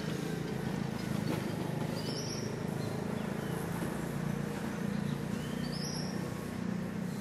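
Village morning ambience: a steady low rumble of traffic, with a bird giving the same short call twice, about three and a half seconds apart.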